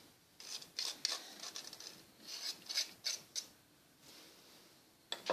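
Scratchy scraping and light tapping at a small wire-mesh strainer over a ceramic bowl as drained quandong and bush lime pieces are knocked out. Two bursts of scraping come in the first three and a half seconds, then a single click near the end.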